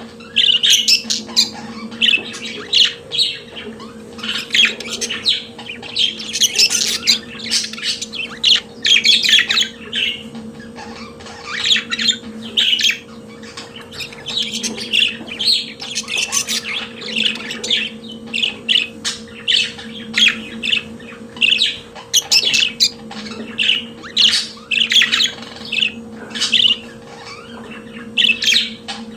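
Budgerigars warbling continuously, a fast chatter of chirps, squawks and short whistles, with a faint steady hum underneath.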